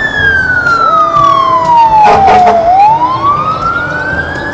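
Toy fire truck's electronic siren wailing, slowly falling in pitch for about two and a half seconds and then rising again, with a few clicks a little past halfway.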